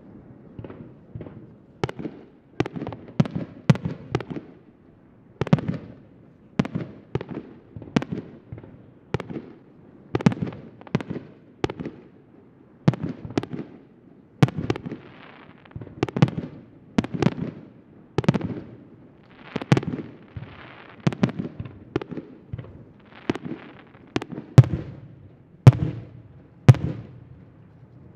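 Aerial firework shells bursting in quick succession, a series of sharp bangs about one or two a second, with the loudest few near the end.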